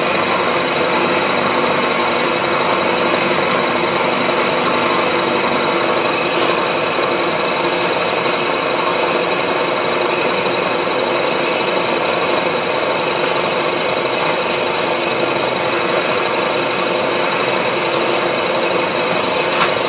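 Milling machine running steadily, a 10mm carbide slot drill cutting a slot dry in a wood chipper blade: an even mechanical hum with a constant whine.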